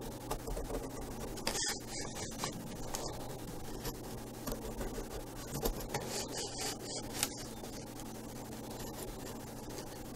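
Felt-tip marker drawn across balsa wood sheeting along a card guide, giving short scratchy strokes in a few bouts, over a low steady hum.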